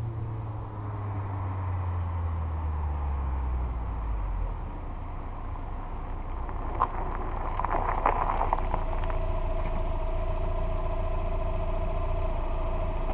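Mazda Miata's 1.6-litre four-cylinder through a Raceland header and Racing Beat Power Pulse exhaust, its note falling as the revs drop over the first four seconds or so, then settling into a steady idle. A short burst of clicks and rattles comes about seven to eight and a half seconds in.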